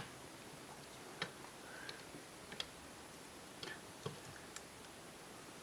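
Faint, scattered light clicks and taps, about six over a few seconds, from small items being handled while working on a transistor radio.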